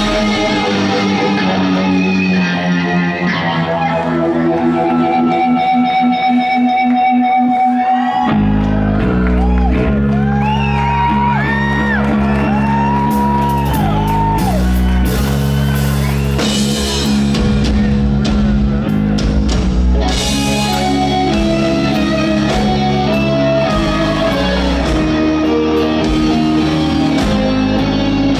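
Rock band playing live in a large hall. For the first eight seconds there are held notes with little low end. Then drums and bass come in, and a lead guitar plays a line that bends up and down.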